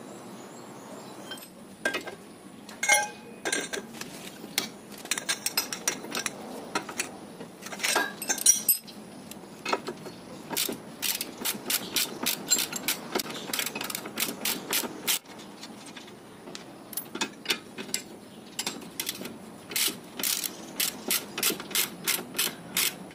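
Socket ratchet clicking in runs of short, sharp clicks as it is swung back and forth, undoing the 17 mm bolt on the ball joint of a car's front suspension.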